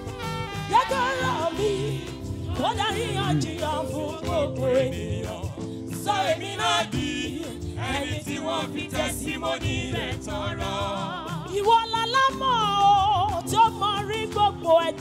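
Gospel choir singing with instrumental accompaniment: voices with heavy vibrato and runs over held chords and a steady beat.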